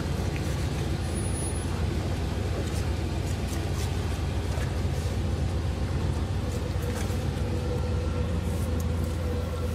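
Steady low mechanical hum, like an engine idling.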